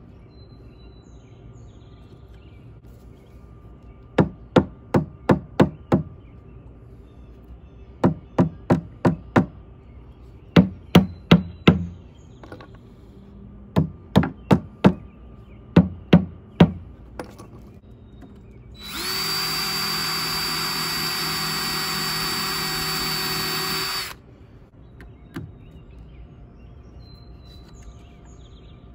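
Claw hammer striking rough barn lumber in quick runs of three to six blows, about five runs in all, while a door is fitted to a wooden hive box. Then a cordless drill runs at a steady speed for about five seconds and stops abruptly.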